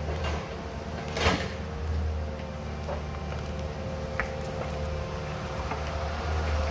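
John Deere excavator's diesel engine running steadily under load with a steady whine above its low hum as the machine digs out and lifts a tree stump. A sharp crack about a second in, and a smaller snap near four seconds.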